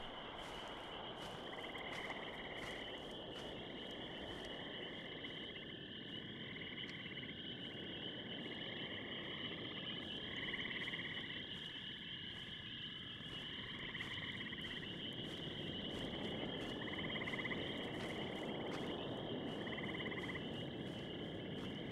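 Outdoor nature ambience: a steady high chirring chorus of insects, with a shorter trilling call repeating about every three seconds.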